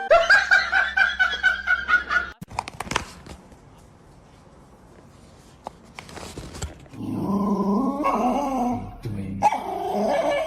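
A dog barking in a fast run of high yips for about two seconds. After a quieter stretch with a few clicks, it makes longer, drawn-out vocal calls from about seven seconds in.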